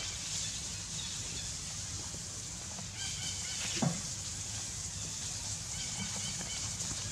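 Steady outdoor background hiss with one short, falling animal call about four seconds in, and a few faint high chirps around it.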